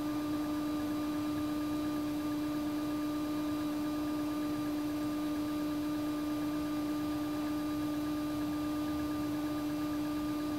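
Steady hum at one fixed pitch with fainter higher overtones, over a constant hiss; unchanging throughout.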